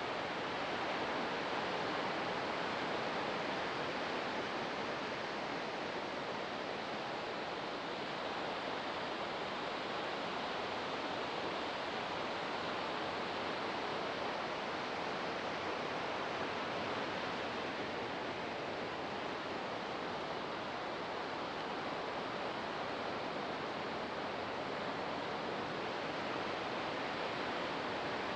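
Ocean waves breaking on the shore, a steady wash of surf with no single breaker standing out.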